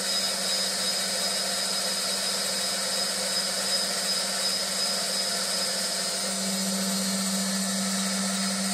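CNC wood lathe running steadily, a constant machine hiss over a low hum that grows stronger about six seconds in.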